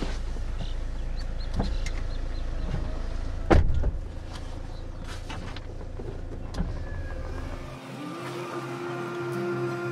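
A car's low, steady engine rumble with a few light clicks and one loud thump about three and a half seconds in. The rumble cuts off near the end as sustained music tones come in.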